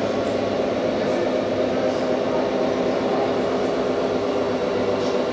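Radio-controlled Scania 8x8 tipper truck driving slowly over sand: a steady mechanical drone from its drive, with no change in speed or pitch.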